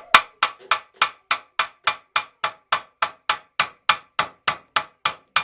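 Rapid, evenly spaced hammer strikes, about three and a half a second, sharp knocks on wood during ceiling work.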